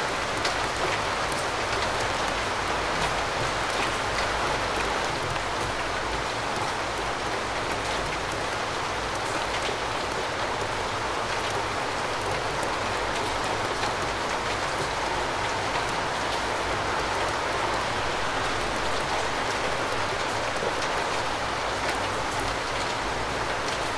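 Steady rainfall: an even, dense hiss with individual drops ticking through it.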